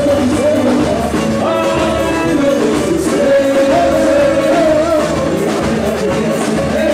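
Brazilian carnival music: a singer's melody over a band, playing continuously.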